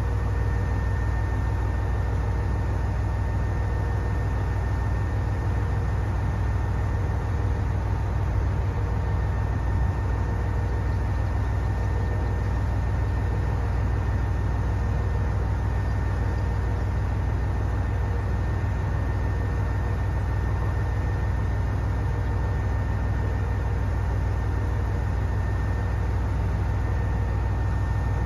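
KiHa 122 series diesel railcar idling while stopped at the platform: a steady low engine rumble with a faint, even whine above it.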